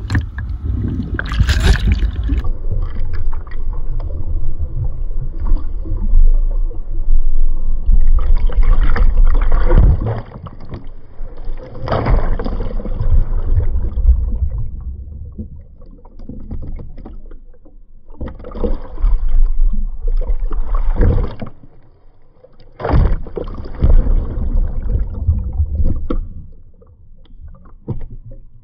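Water churning and splashing around a phone held in the water beside a swimmer doing front crawl, muffled and deep, with louder surges of splash every few seconds.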